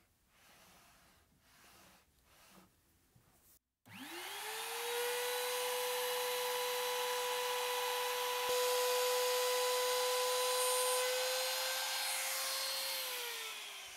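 Compact trim router (power trimmer) switched on about four seconds in, its motor spinning up quickly to a steady high whine. It runs at full speed for about nine seconds, then is switched off and its pitch falls as it winds down near the end.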